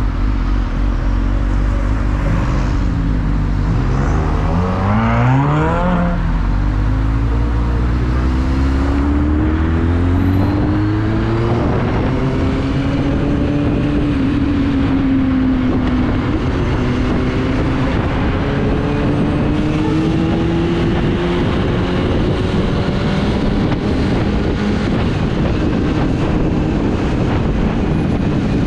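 Motorcycle engine running at low speed in traffic, then revving up a few seconds in and pulling away, its pitch climbing steadily, dipping slightly, then climbing again, over a steady rushing noise.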